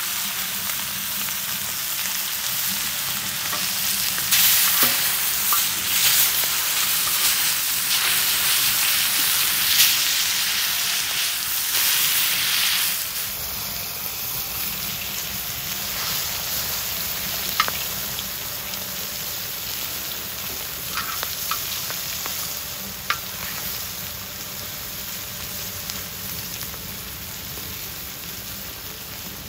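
Bone-in veal rib chops sizzling hard on a saj, a wide steel griddle over a wood fire, louder in the first half and easing about halfway through. A few sharp clicks come in the second half.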